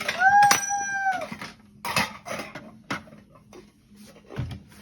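A young child's high-pitched squeal, held for about a second near the start, followed by a few scattered knocks and clatters.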